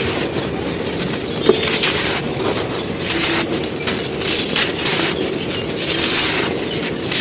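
Dry shapes moulded from black sand being crushed and crumbling, a run of irregular crisp, gritty crunches.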